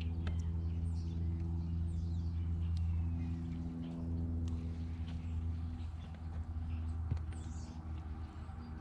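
An engine idling steadily, with birds chirping and a few light clicks over it.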